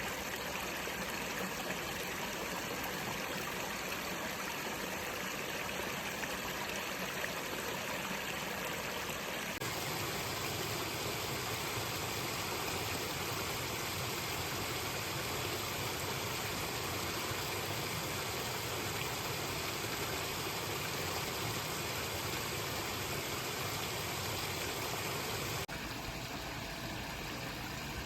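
Water of a fast stream running, a steady rush. About ten seconds in it becomes deeper and fuller, and a few seconds before the end it turns a little quieter and thinner, as the recording cuts from one stretch of the beck to another.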